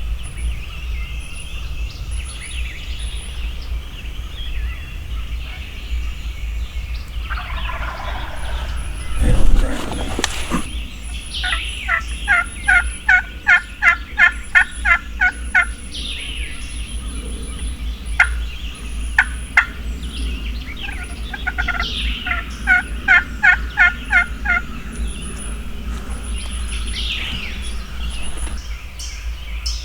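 Wild turkey yelping: two runs of quick yelps, about three or four a second, each note dropping in pitch, with a few single yelps between them. A loud thump comes about nine seconds in.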